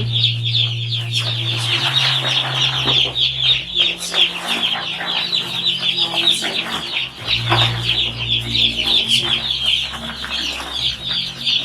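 A large flock of young chicks peeping continuously, a dense stream of short, high cheeps, over a steady low hum.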